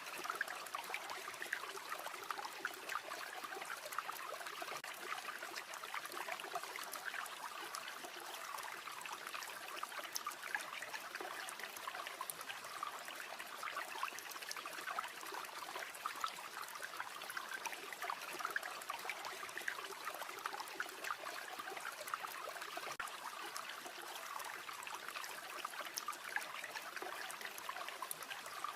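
A river flowing steadily over stones, a continuous babbling trickle with many small splashes and no pauses.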